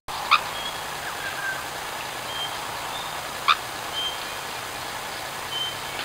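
Bowerbirds calling: two short, sharp calls, about three seconds apart, and a few brief high whistles, over the steady hiss of a trail camera's microphone.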